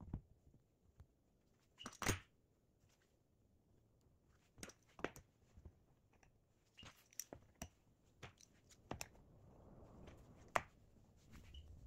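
Scattered clicks and clacks of small steel bar clamps being picked up, set and tightened on a glued-up oak board, with the loudest clack about two seconds in and another sharp one near the end.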